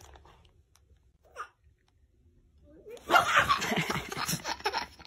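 A toddler laughing hard, in a quick run of breathy laughs that starts about three seconds in after a near-quiet start.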